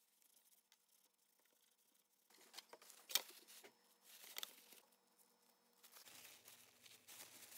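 Paper towel rustling and crinkling as it wipes down a pair of pliers, starting about two seconds in and coming in patches, with a single sharp click about three seconds in.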